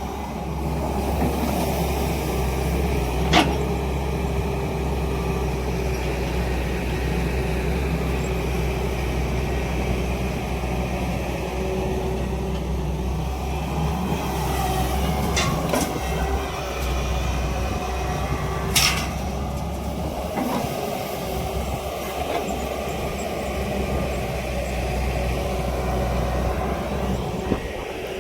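Tracked excavator's diesel engine running steadily, with a few sharp metallic knocks: one about 3 seconds in, a pair near the middle and one a little after.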